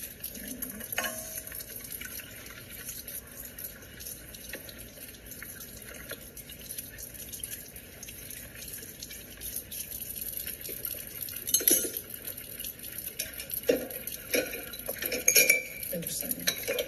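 Tap water running into a kitchen sink while dishes are washed by hand, with dishes and glasses clinking; a few louder clinks come in the second half.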